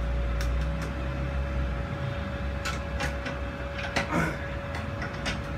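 Scattered light clicks and taps of handling over a steady low hum and a faint constant whine. The low hum stops about two seconds in.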